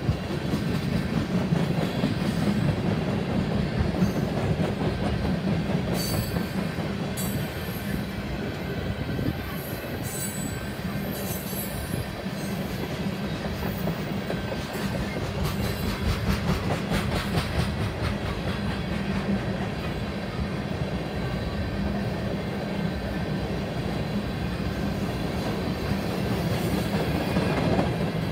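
Tank cars of a freight oil train rolling past at steady speed: a continuous rumble and clatter of steel wheels on the rails, with brief high-pitched wheel squeals now and then in the middle.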